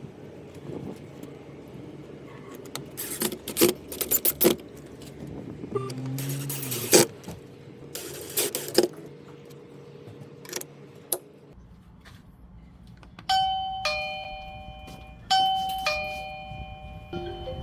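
Scattered handling clicks and knocks, then from about thirteen seconds in an electronic chime: bell-like notes struck about every two seconds, each ringing and dying away.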